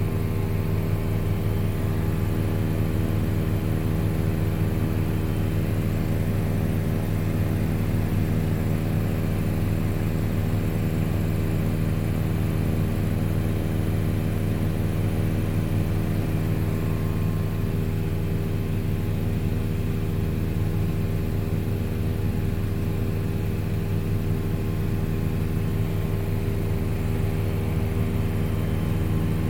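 Helicopter running steadily in flight: an even, unbroken engine and rotor hum made of several steady low tones over a rushing noise.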